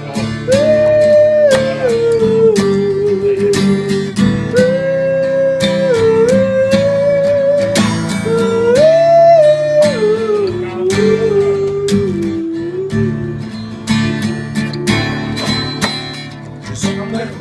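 Instrumental break in a French ballad: a lead melody of long held notes that slide from one pitch to the next, over strummed acoustic guitar.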